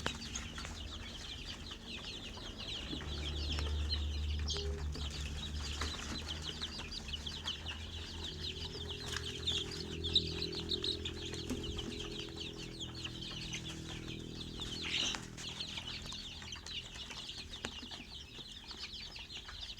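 A brood of chicks peeping continuously, many short high-pitched cheeps overlapping. A low steady hum runs under them for several seconds in the first half.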